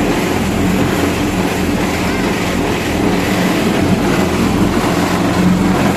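Sago processing machine's engine running steadily with a constant low hum and mechanical clatter.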